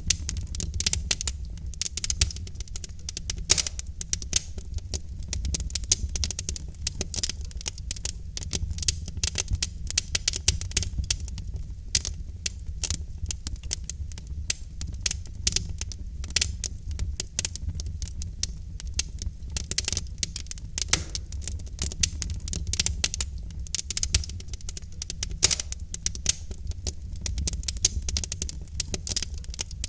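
Wood logs burning in a fireplace, crackling and popping with many sharp, irregular snaps over a steady low rumble of the fire.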